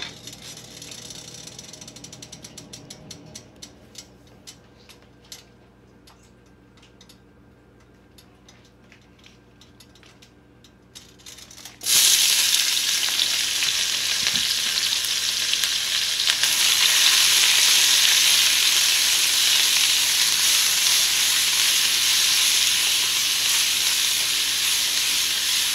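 Hot oil in a non-stick wok crackling faintly with quick small pops that thin out. About twelve seconds in, sliced green vegetables are tipped in and the oil breaks into a loud, steady sizzle as they fry.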